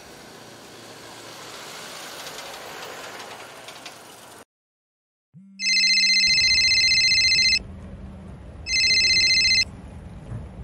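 Street traffic noise, then after a brief silence a mobile phone ringing with a high electronic ringtone, sounding twice: a longer ring, then a shorter one about a second later, for an incoming call.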